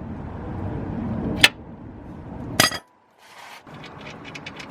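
Two sharp metallic clinks about a second apart, over a steady low rushing noise; the sound drops out briefly just after the second clink.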